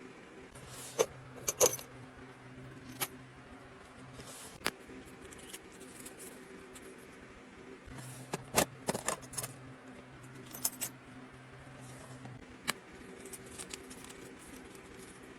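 Self-defense keychains jangling and clinking as they are handled: scattered sharp metallic clinks, bunched in two flurries, over a faint steady hum.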